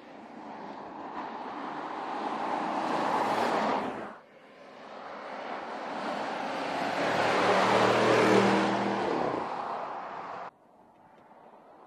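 2019 Porsche Cayenne Turbo with its twin-turbo V8 driving past twice. Each pass builds as the car approaches. The first cuts off suddenly about four seconds in; the second is louder, with a clear engine note at its peak, and cuts off suddenly near the end.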